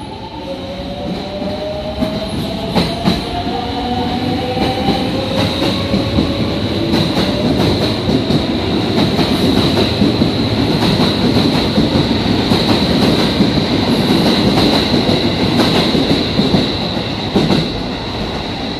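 Commuter electric train running alongside the platform. Its motor whine climbs slowly in pitch over the first few seconds, and the wheels rumble and clatter over the rail joints, growing louder toward the middle as the cars pass close by.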